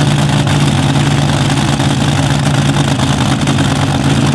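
Supercharged V8 of a front-engine dragster idling loudly and steadily through open headers.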